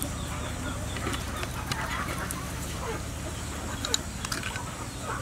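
Chickens clucking, with a few light clicks about four seconds in, over a steady low hum.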